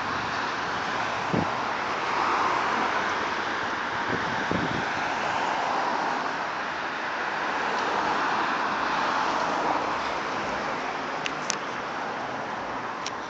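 A large flock of birds calling all at once in the trees, a dense, steady wash of chatter that swells and ebbs, with a few short sharp chirps near the end.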